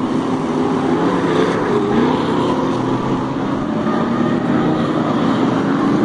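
Several stock car engines running hard as the cars race around the oval, a loud continuous racket with pitch rising and falling as they rev.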